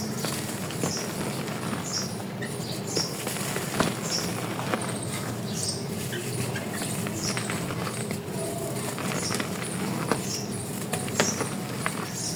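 Dry chalk being crumbled and crushed by hand, a continuous crackling and crunching made of many small snaps, with a few sharper cracks about four seconds in and near the end.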